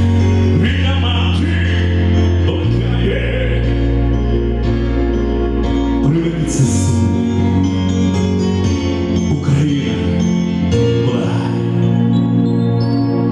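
A man singing into a handheld microphone over instrumental accompaniment with steady bass and held chords.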